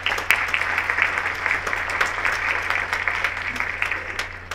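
Audience applauding, many hands clapping at once; the applause stops at the end.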